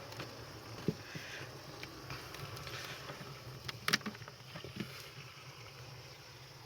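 A few sharp clicks and taps from refrigerator parts and tools being handled, the loudest about four seconds in, over a faint steady low hum.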